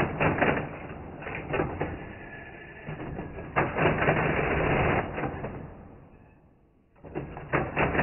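Hamann Automat V electro-mechanical calculator running an automatic abbreviated multiplication: its motor-driven mechanism clatters and rattles through its turns, counting backwards once and then forwards once in the next place instead of nine turns. The clatter almost dies away about six and a half seconds in, then starts up again.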